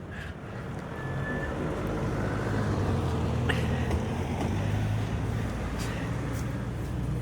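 Motor vehicle engine running steadily, growing louder about a second in and then holding.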